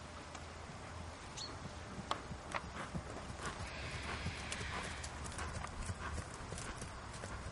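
Haflinger horse trotting on grass under a rider: irregular hoofbeats as short knocks.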